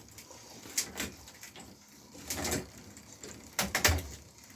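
A few scattered, irregular sharp clicks and knocks, with a small cluster of them near the end.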